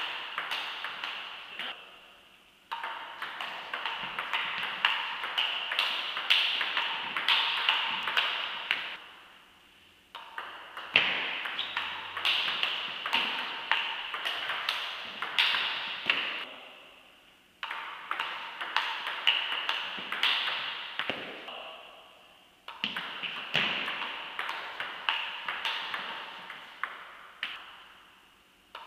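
Table tennis rallies: the ball clicking back and forth off bats and table at a quick even pace, each hit ringing in the large hall. Several rallies follow one another, each breaking off and starting abruptly.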